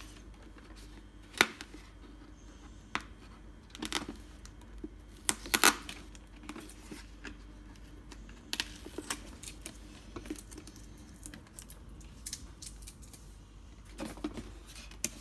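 Hard plastic Catboy toy case being handled: scattered clicks and taps of fingers and plastic, a few at a time, with faint rustling.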